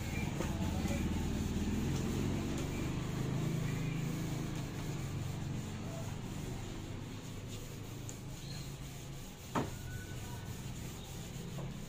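A steady low rumble that eases off a little after the first few seconds, with one sharp click about nine and a half seconds in.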